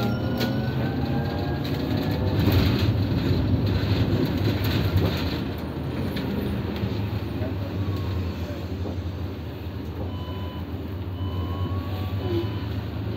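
Inside a moving electric city bus: a steady low drive hum and road noise, with the electric drive motor's whine rising in pitch as the bus accelerates in the first two seconds. There are scattered knocks and rattles of the cabin, and short faint whines recur near the end.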